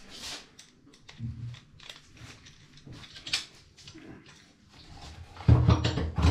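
Scattered small clicks and rustles of handling, then a loud low knocking and thumping near the end.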